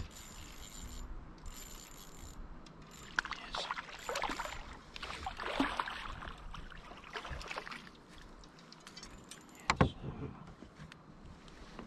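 A hooked crappie splashing at the water's surface as it is reeled in and swung aboard a boat, with a sharp knock about ten seconds in.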